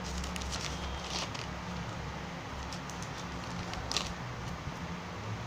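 Pages rustling and crackling in a few short bursts as they are leafed through, the loudest about four seconds in, over a steady low hum.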